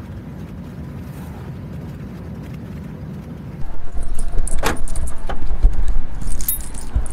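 Car road noise, a steady low rumble while driving, then about three and a half seconds in a louder stretch of wind and handling noise on the microphone with several sharp clicks and knocks around a car door.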